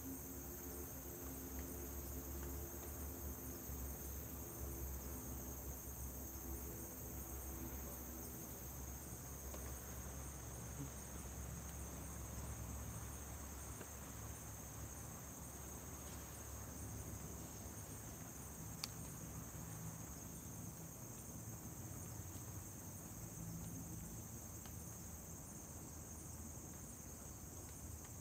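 Crickets chirping steadily in a constant high-pitched trill, with a faint low rumble beneath and one small click near the end.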